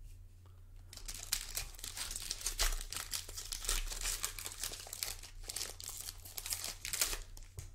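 Foil wrapper of a Prizm basketball card pack crinkling and tearing as it is pulled open by hand, starting about a second in.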